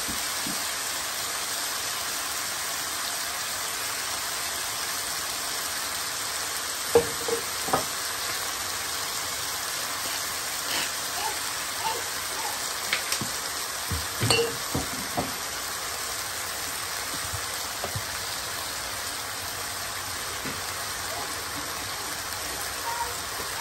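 Minced meat frying in a pan with a steady sizzle. A few light clicks and taps come through about seven seconds in and again around fourteen seconds.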